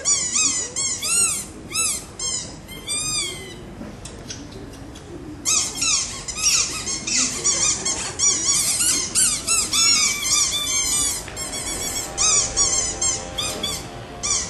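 High, squeaky bird-like chirps in rapid runs, each a quick rise-and-fall call, several a second, with a short lull about four seconds in.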